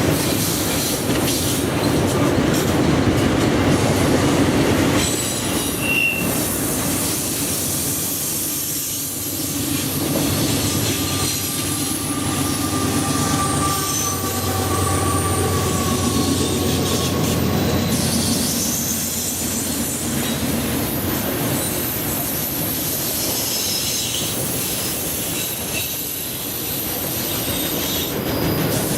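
A train rolling past, its railcar wheels rumbling steadily on the rails, with thin high-pitched wheel squeal coming and going.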